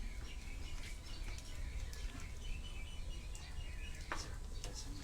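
Birds chirping faintly over steady background noise, with a short click about four seconds in.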